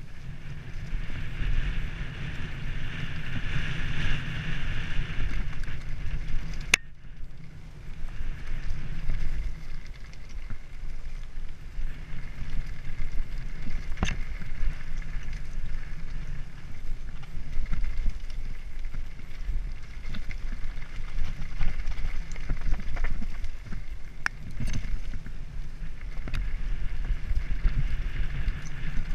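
Mountain bike riding fast down a dirt forest trail: a continuous rumble of wind on the camera microphone and the bike rattling over rough ground, with a few sharp knocks as it hits bumps.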